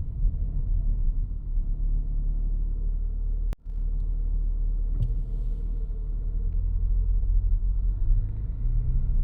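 Mazda CX-60 on the move: a steady low drivetrain and road rumble, broken by a momentary gap about three and a half seconds in.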